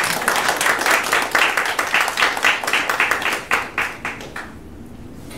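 Audience applauding, a dense patter of hand claps that dies away about four and a half seconds in.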